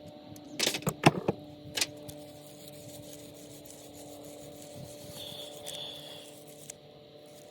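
A quick run of clicks and knocks about a second in, like small carburetor parts or tools being handled on a bench, over a faint steady hum.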